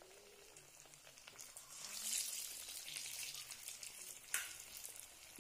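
Singdas deep-frying in hot oil in a kadhai: a crackling sizzle that swells about two seconds in, as another pastry goes into the oil. Near the end a single sharp tap.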